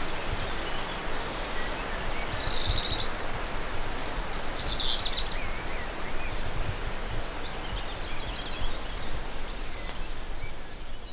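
Outdoor ambience: a steady rushing background noise with small birds chirping and trilling in a few short phrases.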